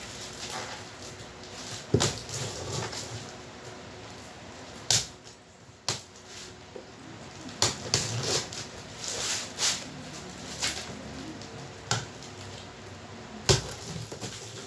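Handling noise from unboxing a loudspeaker driver: rustling packaging with about half a dozen sharp knocks and clicks scattered through it.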